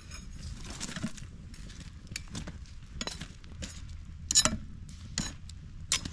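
Metal tools, a machete-like blade among them, knocking and clinking against burning logs and the steel fire ring as the campfire logs are pushed around: a dozen or so sharp, irregular knocks, the loudest about four and a half seconds in and just before the end.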